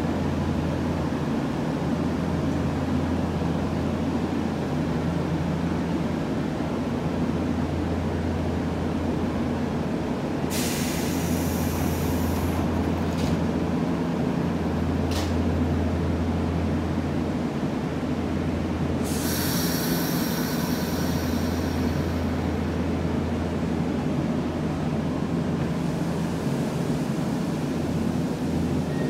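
Semboku Rapid Railway electric commuter train at a station platform: a steady low hum, with two short bursts of high hiss about ten and nineteen seconds in and a single click between them.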